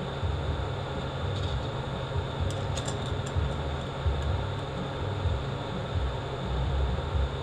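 Steady low droning hum of background machinery, with a few faint light clicks of metal parts being handled about two and a half to three seconds in.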